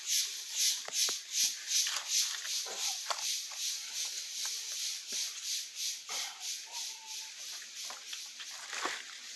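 A rhythmic high hissing pulse, about three a second, typical of insects calling, weakening near the end. Scattered short cracks and rustles of someone climbing over dry debris.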